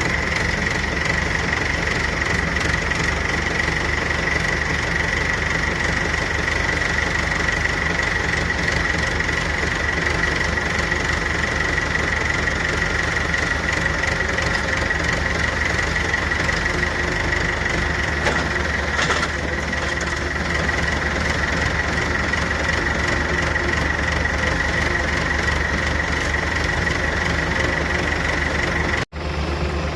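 Farm tractor's diesel engine running steadily during corn chopping, with a constant high-pitched whine over it. The sound cuts out briefly about a second before the end.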